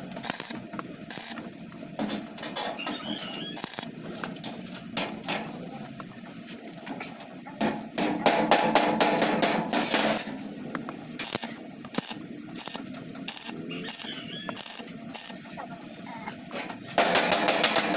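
Arc welding on the seam of a tricycle sidecar's sheet-steel floor, with a chipping hammer knocking slag off the welds. Irregular sharp metal taps come throughout, with denser, louder crackling about eight seconds in and again near the end.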